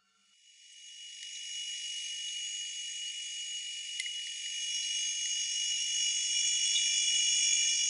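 A high-pitched steady drone made of several held tones, fading in over the first second and a half and swelling slightly toward the end, with a single sharp click about four seconds in.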